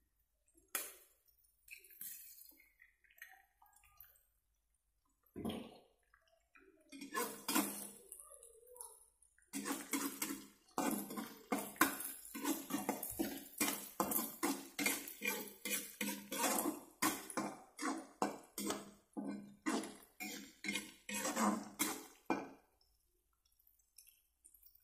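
A chicken egg knocked and cracked into a wok of frying quail eggs, with a few scattered scrapes. Then a metal spatula scrapes and taps around the wok in quick repeated strokes as the egg is scrambled, stopping shortly before the end.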